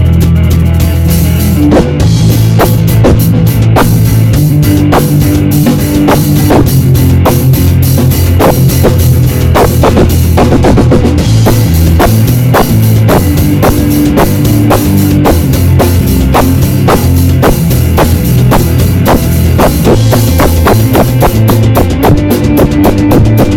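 Rock band playing a song: drum kit with heavy bass drum and cymbals under electric guitar and bass, with a steady beat. Loud, rough-quality recording.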